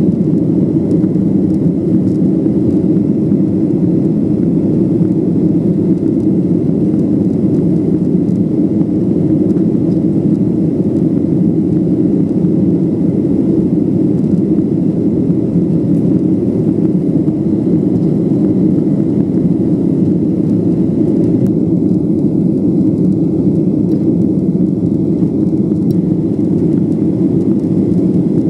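Boeing 737-800 cabin noise heard from a window seat during the climb after takeoff: a steady, deep drone from the CFM56-7B turbofan engines and the air rushing past the fuselage.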